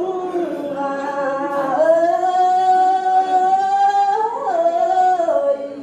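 A woman singing a Tày lượn folk song into a microphone. She holds long drawn-out notes with slow slides in pitch, rises about four seconds in, then steps back down.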